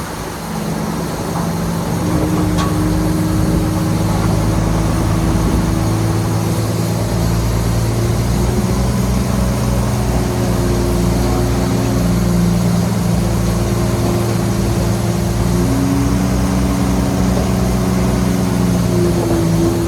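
Heavy diesel engine of earthmoving machinery running steadily, growing louder over the first couple of seconds, its pitch shifting a little now and then.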